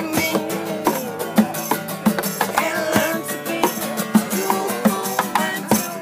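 Music playing, with a plucked-string melody over a steady beat of about two strokes a second.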